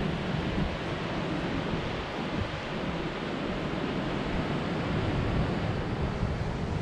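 Ocean surf breaking and washing over rocks in a steady wash of noise, with wind buffeting the microphone in a low, uneven rumble.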